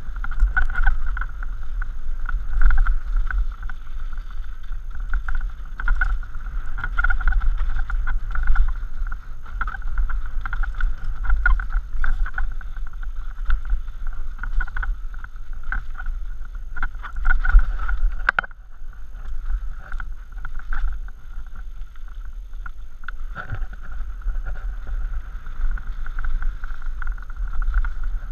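Mountain bike descending a rough dirt singletrack, heard from a helmet camera: wind rumbling on the microphone over the rattle and knock of the bike and its tyres on dirt and stones, with a steady buzz. A sharp click comes about two thirds of the way through, and it is a little quieter for a few seconds after.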